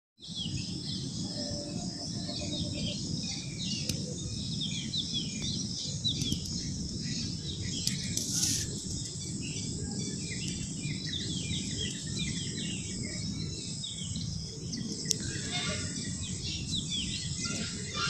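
Small birds chirping, many short, quick chirps overlapping throughout, over a steady low rumble.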